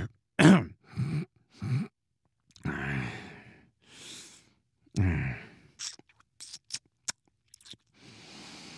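A cartoon dad's wordless dad noises: a few short grunts, two long drawn-out vocal sounds falling in pitch, a run of mouth clicks, and a breathy exhale near the end.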